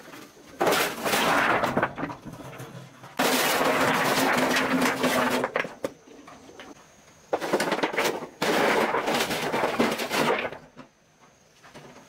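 Rocks clattering and sliding out of a tipped metal wheelbarrow onto a pile of stones, in four loud bursts of a second to a few seconds each with short pauses between.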